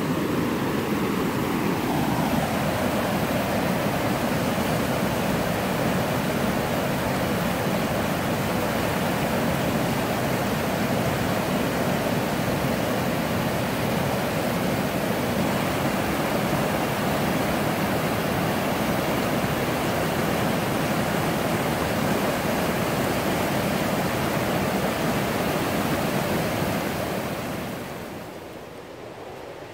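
Thunder River rapids rushing steadily over rock ledges, a loud, even roar of white water. It fades noticeably near the end.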